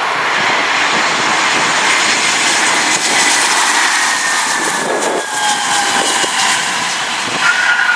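Airbus A320 airliner's jet engines running on approach and landing: a loud, steady roar with a whine that slowly falls in pitch as the aircraft passes close by.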